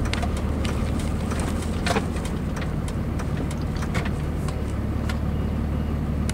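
Pickup truck's engine running steadily, heard from inside the cab as a low hum, with scattered light clicks and taps.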